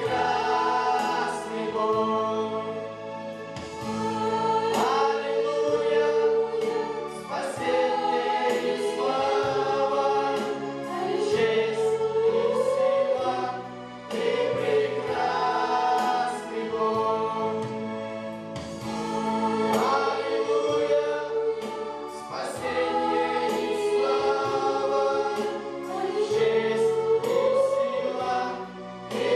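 Mixed choir of young men and women singing a Christian worship song in harmony through microphones, phrase after phrase with short breaths between, over steady low keyboard notes.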